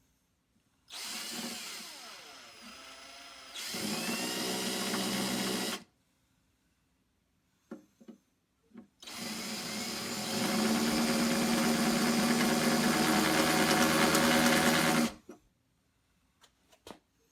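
Power drill with a 3/8-inch bit boring the full-size holes after the pilot holes. It runs in two bursts, one of about five seconds and one of about six, with short clicks in between. In the first burst the motor slows and then picks up again. The second burst grows louder a second or so in.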